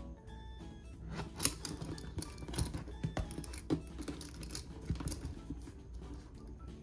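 A clear plastic zip-top bag being pulled open and handled: irregular crinkling and clicking of the stiff plastic and its zipper, from about a second in. Soft background music plays underneath.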